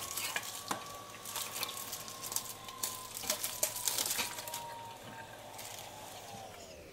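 Plastic bag being slit with a knife and peeled off a whole raw broiler chicken: crinkling plastic with scattered clicks and taps.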